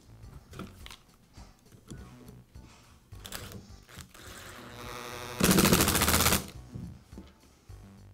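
Cordless screwdriver driving a screw into a plastic tool housing: the motor whirs for about a second, then gives about a second of loud, rapid clicking as the screw tightens. Light handling clicks come before it.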